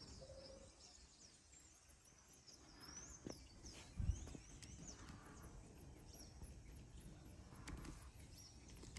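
Faint outdoor ambience with small birds chirping high and thin on and off. There is a sharp click about three seconds in and a low thump about a second later.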